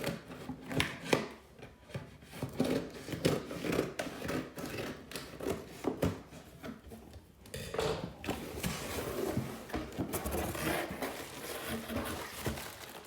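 Cardboard box and its packing being handled and pulled open: irregular scrapes, rustles and light knocks, busiest in a stretch of scraping and rustling about eight seconds in.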